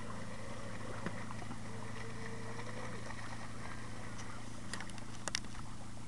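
Radio-controlled model hydroplane's motor running faintly out on the lake, over a steady low hum and light wind noise, with a few sharp clicks near the end.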